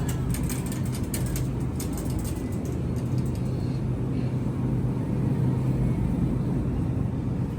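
Steady low rumble with a constant electrical hum, typical of grocery store background noise.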